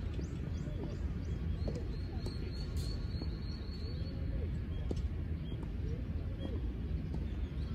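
Outdoor ambience: a steady low rumble with faint bird calls over it, including a quick high trill a couple of seconds in.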